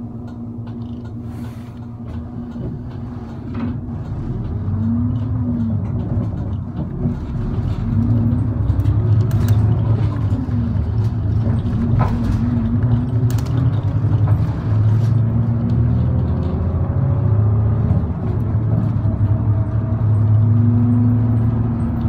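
Route bus engine heard from inside the cabin, running steadily and growing louder from about four seconds in as the bus accelerates, its pitch rising and falling with gear changes. A few light knocks and rattles sound above it.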